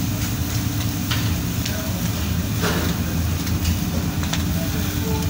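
Charcoal grill cooking chicken in wire baskets: a steady low hum of kitchen machinery, with scattered crackles and clicks from the coals and the metal baskets.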